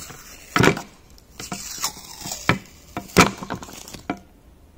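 Blue painter's tape being peeled off a composite propeller hub, in a series of short, irregular rips with handling noise, the loudest about half a second and three seconds in. It stops about four seconds in.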